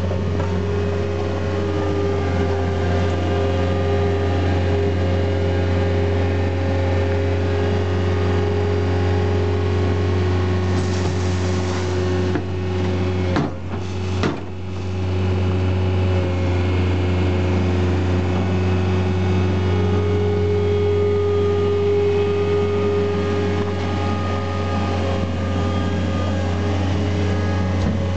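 Skid steer loader's engine running steadily, with two brief drops in sound about halfway through.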